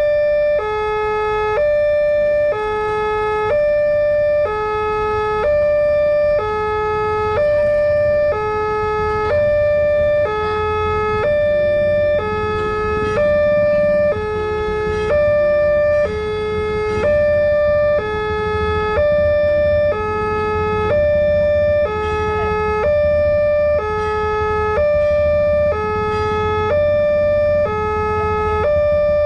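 Railway level-crossing warning alarm, the electronic unit of a new Nataya Putra (NP) crossing, sounding a steady two-tone signal. A lower and a higher tone alternate, each lasting about a second.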